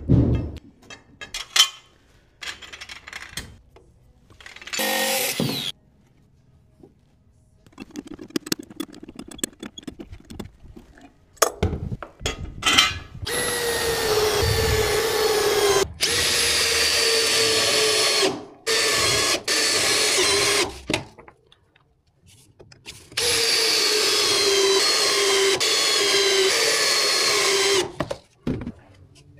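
Cordless Makita impact driver driving 1/4-inch by 3-inch SDS screws through a steel hold-down into a wood post, in several runs of a few seconds each. The whine sinks in pitch as each screw draws in. Short knocks and rattles of parts being handled come first.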